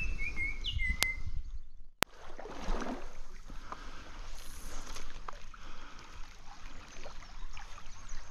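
Water noise from wading in a trout stream, with a bird singing a few short falling notes at the start. A sharp click about two seconds in, then steady water and handling noise.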